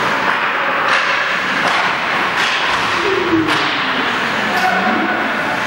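Ice hockey play in a rink: a series of sharp knocks of sticks and puck, about one every second, over steady rink noise, with a drawn-out call whose pitch falls in the middle.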